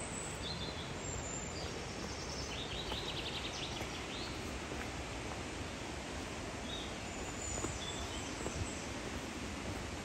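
Steady rushing noise of a waterfall, with small birds chirping high above it a few times and a short trill about three seconds in.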